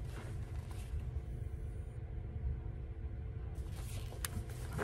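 Steady low rumble with faint rustling and handling of a paperback coloring book as it is turned and held up, the rustling a little stronger near the end.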